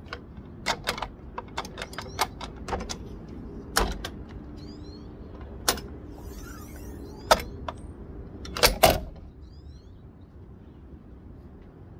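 Sharp clicks and knocks from a Thule Hullavator Pro kayak lift as its arm is swung down off the roof crossbar and folded back up, its pivots and latches clacking. The loudest is a close double knock about three-quarters of the way through.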